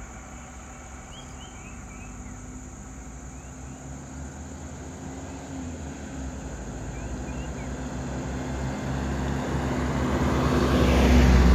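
Vehicle engines running on the road, the sound growing steadily louder over the last few seconds as a van drives up and passes close by. A few faint bird chirps come a second or two in.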